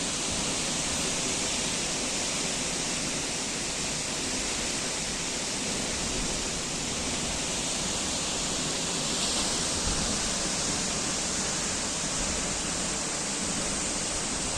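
Waterfall: the steady rush of water falling and crashing, an even hiss that does not change.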